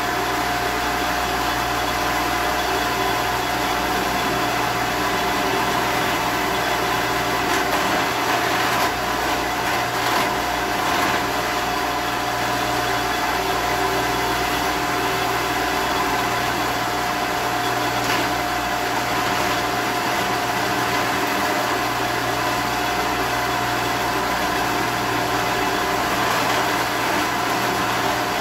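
1954 Shopsmith in drill-press mode running steadily, its motor giving a constant hum with a high, even tone, while a Forstner bit is fed down into a wooden bass body to bore out a cavity, with faint cutting sounds now and then.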